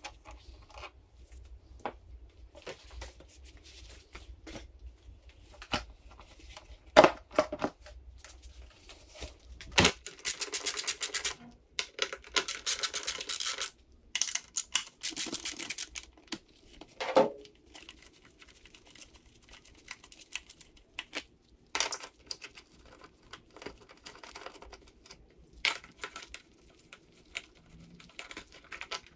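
Hand-disassembly sounds from a Yamaha PW80 dirt bike: scattered knocks and rattles of plastic bodywork and metal fasteners, with several bursts of fast clicking between about ten and sixteen seconds in.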